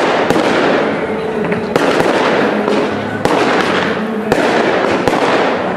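Fireworks cake firing: a run of sharp bangs from aerial shots bursting, about one or two a second, over a steady crackle and hiss.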